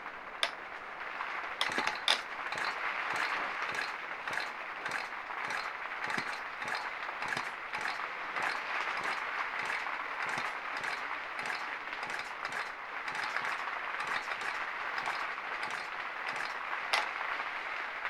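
Heavy rain from a storm pattering steadily on the roof, with many small ticks and a few sharper clicks.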